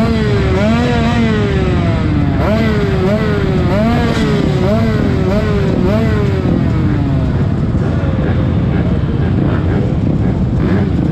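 Several motocross bikes revving at the start gate, throttles blipped over and over so the engine pitch rises and falls again and again. The revving tails off about seven seconds in, leaving a steadier engine drone.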